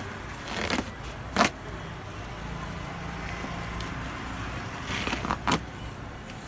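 Woven plastic sack crackling and rustling as its neck is gathered and tied with string, in two pairs of short, sharp crackles, about a second in and again near the end, over a steady low hum.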